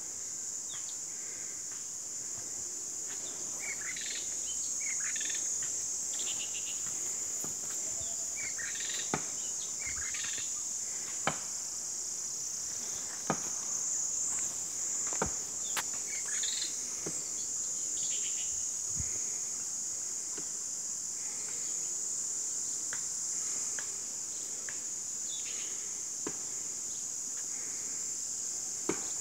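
Steady high-pitched drone of a daytime insect chorus, with scattered short chirps over it and a handful of sharp clicks in the middle.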